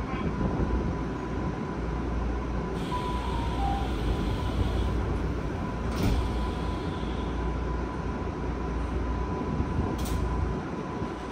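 Tokyu 5050-series commuter car standing at a platform: the doors slide shut and close with a knock about six seconds in, and a second sharp click comes near the end. Underneath is the car's steady low equipment hum with a thin high whine.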